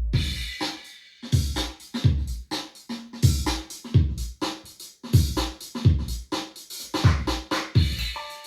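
A Roland V-Drums sound module playing a built-in hip-hop style demo pattern: an electronic drum beat with kick and sharp snare and hi-hat hits, in a groove that repeats about every two seconds.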